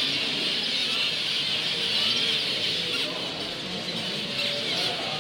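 Chorus of many caged zebra finches calling at once: a dense, steady chatter of countless small overlapping calls.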